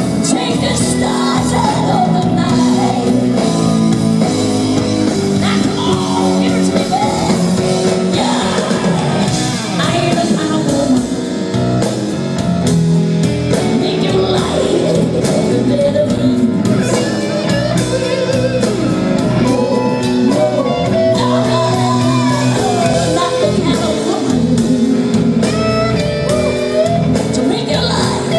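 Live rock band playing a blues, with a woman singing lead over electric guitar, drums and keyboards, heard from the audience.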